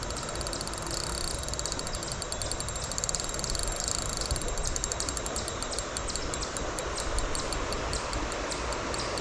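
Insects chirping in a fast, steady pulse of high ticks over the steady rush of river water.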